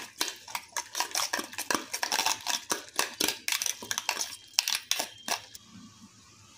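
A utensil beating raw eggs in a steel bowl, clinking against the metal in quick repeated strokes about three times a second, stopping near the end.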